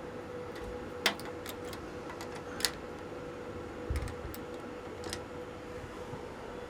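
Scattered sharp clicks and a low knock from switches and controls being operated on an audio equipment rack, the loudest click about a second in, over a faint steady tone.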